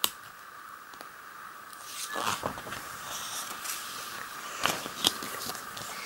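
Quiet paper rustle of a picture-book page being turned and smoothed down. A crinkly rustle about two seconds in, then a couple of light clicks near the end.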